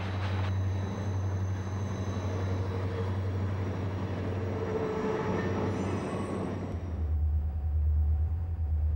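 Diesel freight locomotives running hard, a steady low engine drone with track noise over it. About seven seconds in a deeper, louder locomotive drone takes over.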